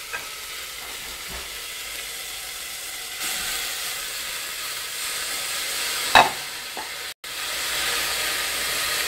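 Cabbage sizzling in a stainless saucepan on an electric stove. The sizzle grows louder about three seconds in as shredded apple and orange juice go into the hot pan, and there is a single sharp knock about six seconds in.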